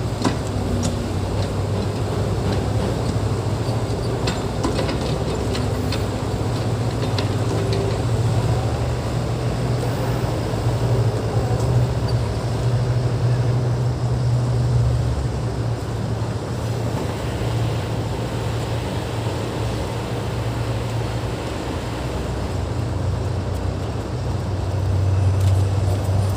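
Heavy earthmoving machine's diesel engine running steadily, its low rumble swelling and easing, with a few short metallic knocks in the first several seconds.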